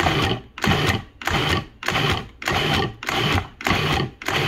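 Food processor pulsing, chopping onion and carrot chunks in its bowl: short, even bursts of the motor and blade, a little under two a second.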